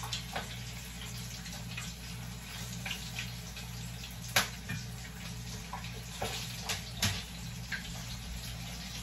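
Chicken frying in a pot of hot oil: a steady sizzle, with a low hum underneath. A few sharp clicks and knocks sound over it, the loudest about four and a half seconds in and another about seven seconds in.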